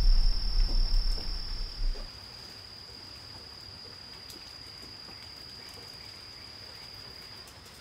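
An insect trilling in one steady high-pitched tone, which stops shortly before the end. A low rumble fills the first two seconds, and there are a few faint clicks.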